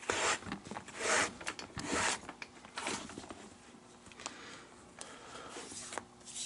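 Leather glove lace being pulled through the lacing holes of a baseball glove during relacing of the palm: a run of zipper-like scraping pulls, about four strong strokes in the first three seconds, then fainter rubbing and handling of the lace.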